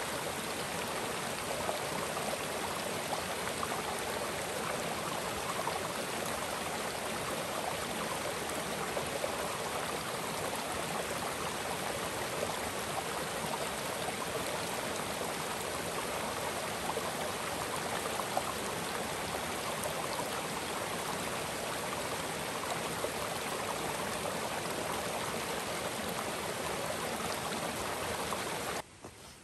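Mountain creek flowing with a steady rush of water, cutting off suddenly near the end.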